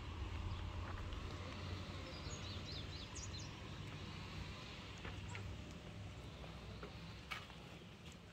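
Outdoor background noise with a low rumble, and a small bird chirping several times a couple of seconds in. A few soft knocks near the end.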